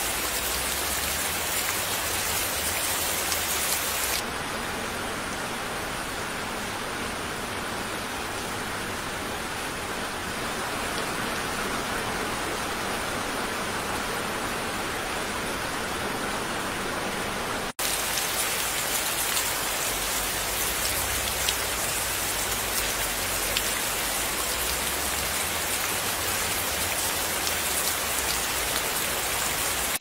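Steady rain falling. About four seconds in the sound turns abruptly duller, and near eighteen seconds it cuts out for an instant before brighter rain picks up again.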